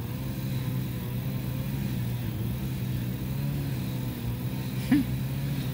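Steady low hum of an engine running at idle, unchanging throughout, with one brief short sound about five seconds in.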